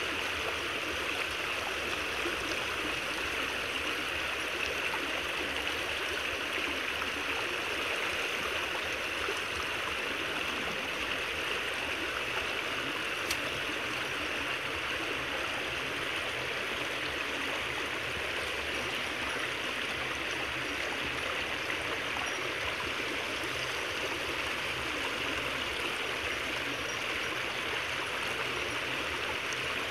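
Creek water rushing steadily through a narrow gap in a brush-and-bamboo dam, churning as it pours out.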